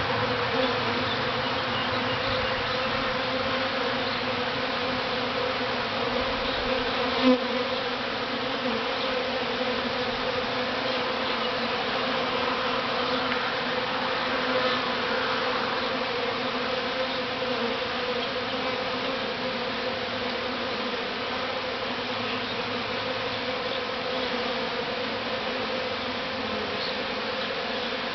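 Steady, dense buzzing of a honey bee swarm flying around and settling into its new hive box. A single brief louder blip comes about seven seconds in.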